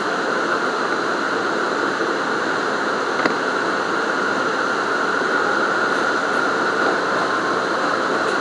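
R179 subway train running on elevated track, heard from inside the rear car: steady rumble and rail noise with a steady high-pitched tone over it, and a single click about three seconds in.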